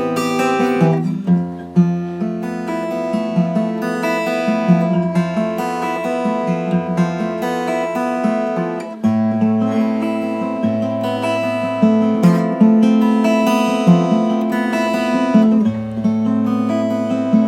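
Old Espana acoustic guitar, fitted with a compensated nut, strummed through a run of ringing chords. The chord changes about a second in, again midway, and near the end.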